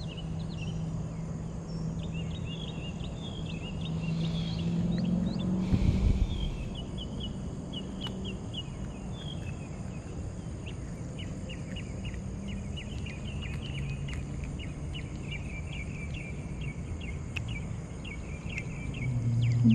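Outdoor pond-side ambience: insects trilling steadily, with a long run of quick, high chirps, several a second. Under it a low steady hum swells around five or six seconds in, with a brief noisy burst, and fades out by about eight seconds.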